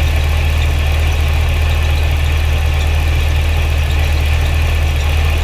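2009 Cadillac CTS-V's supercharged 6.2-litre V8 idling with a steady, even low hum.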